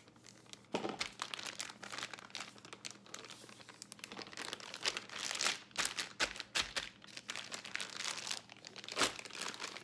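Plastic gallon-size zipper freezer bag filled with raw chicken crinkling and rustling as air is pressed out and the zip seal is pressed shut, with a few sharper crackles about a second in and near the end.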